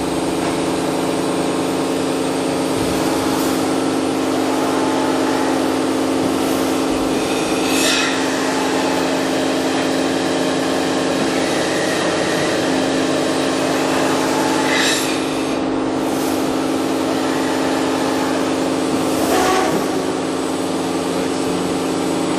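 Toshiba MPF-2114C bridge-type vertical machining center's spindle running steadily at 4,000 RPM, a continuous machine hum made of several steady tones. Three brief hisses are heard over it.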